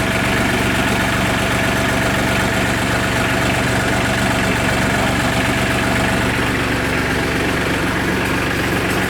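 New Holland TC33DA tractor's diesel engine running steadily at a low, even speed, with no revving.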